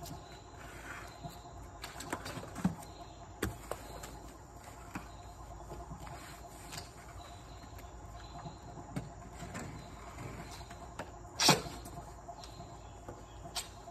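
Crickets chirring steadily, with scattered light knocks and scuffs from work on the pool steps. One louder sharp knock comes about eleven and a half seconds in.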